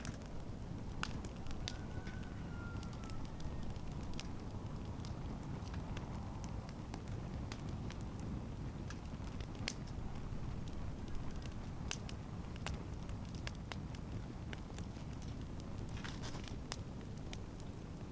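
Wood campfire crackling, with irregular sharp pops and snaps over a steady low rush.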